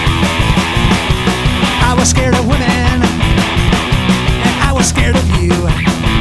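Loud punk-rock music with a steady beat and guitar; a voice comes in singing about two seconds in.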